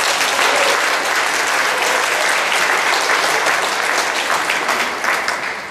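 Audience applauding: a dense, steady clatter of many hands clapping that starts to die away near the end.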